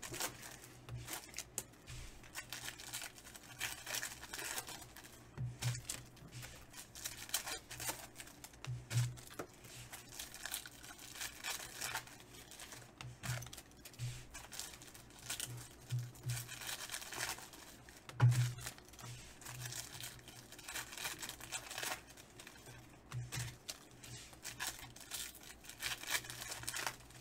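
Foil trading-card pack wrappers being torn open and crinkled by hand, in irregular rustling crackles, with a few soft handling knocks and one sharper click about two-thirds of the way through.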